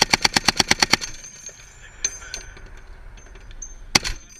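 M2 .50 calibre heavy machine gun firing a sustained burst at about nine rounds a second, ending about a second in. A single loud shot follows near the end.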